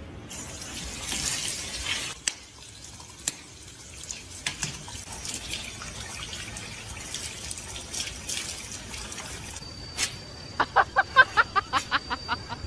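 Water running and splashing from a tap or hose onto wet concrete, with scattered small clicks and drips. Near the end comes a quick run of short, high chirping squeaks, about four or five a second.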